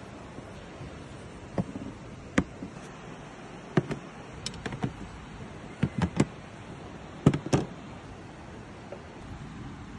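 White plates set down one after another on a table: about a dozen sharp clinks and knocks, several in quick pairs, over a faint steady hiss.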